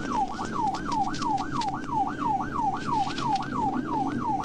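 Police car siren in yelp mode, a fast up-and-down wail repeating about four times a second, recorded from inside the pursuing cruiser over its engine and road rumble.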